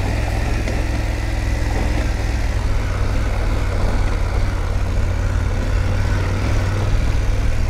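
BMW F850GS's parallel-twin engine running at a steady low drone while the motorcycle rides a dirt track, with a constant rushing noise over it.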